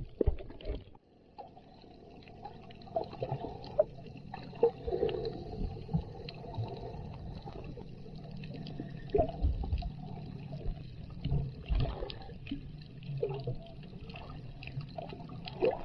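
Muffled water sound heard from a camera held underwater: gurgling and sloshing with irregular small knocks and clicks over a low steady hum. The sound dulls sharply about a second in as the camera goes below the surface.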